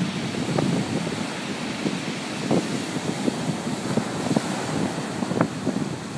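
Heavy storm surf breaking and washing over a pebble beach in a rough sea-storm swell, with wind buffeting the microphone in short gusts.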